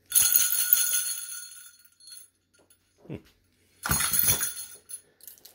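Brass sleigh bells on a strap shaken twice, jingling. The first shake comes right at the start and rings out over about a second; a shorter one follows about four seconds in.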